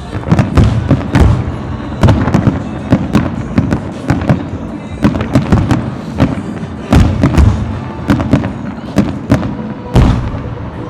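Aerial fireworks shells bursting in a rapid barrage, sharp booms several a second with crackle between them.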